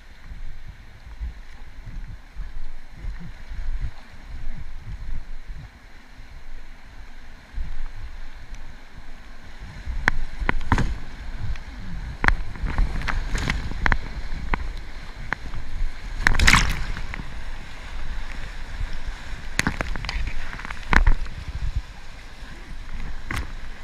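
River water rushing and sloshing around an Aire Tomcat Solo inflatable kayak, with a low rumble of wind on the microphone. From about ten seconds in, a run of irregular sharp splashes, the loudest a little past the middle.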